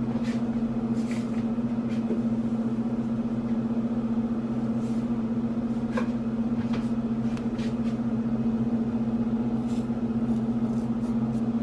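Steady low electric hum, like an appliance or fan motor running, with a few faint light clicks on top.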